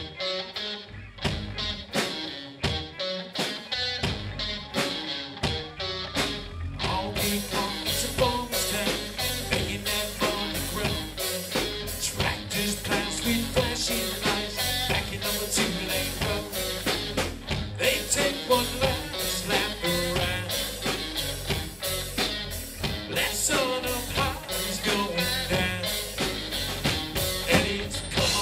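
Live country-rock band playing: electric guitars, bass and drum kit, sparse and rhythmic at first, with the full band coming in about seven seconds in.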